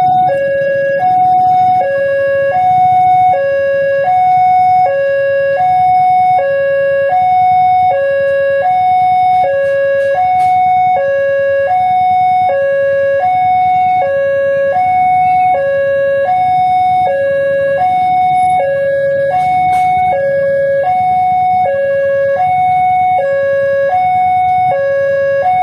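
Railway level-crossing warning alarm: an electronic two-tone signal switching steadily between a high and a low note about once a second, sounding while the crossing barriers are down for an approaching train.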